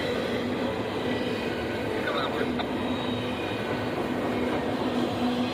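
Double-stack intermodal freight train cars rolling steadily past a grade crossing, a continuous rumble of wheels on rail.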